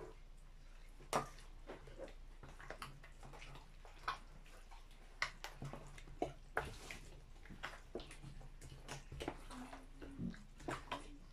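A wooden spoon and a metal spoon stirring and tossing sauce-coated kimchi vegetables in a plastic basin. Irregular light clicks and knocks of the utensils against the bowl come with wet squishing.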